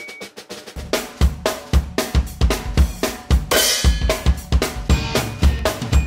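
Drum-kit music with a steady fast beat of snare and bass drum, the bass drum entering about a second in and a cymbal crash near the middle.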